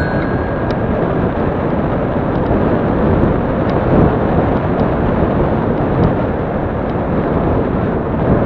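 Wind rushing over the microphone of a handlebar-mounted action camera while a bicycle rolls along an asphalt path, with tyre rumble and a few faint light ticks from the bike.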